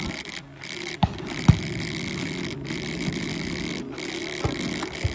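Sharp smacks of a volleyball in play: two close together about a second in, the second the loudest, and two fainter ones near the end, over a steady background din.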